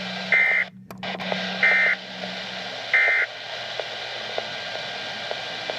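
Weather radio broadcast carrying three short, identical bursts of SAME (Specific Area Message Encoding) digital data tones, a harsh buzzing warble about 1.3 seconds apart, over steady radio hiss. The sound drops out briefly just after the first burst, and a low hum stops about halfway through.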